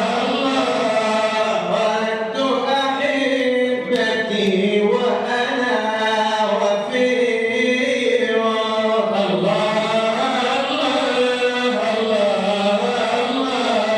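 Arabic devotional chanting of a madih nabawi qasida: a male voice singing long, held melodic phrases that glide up and down without a break.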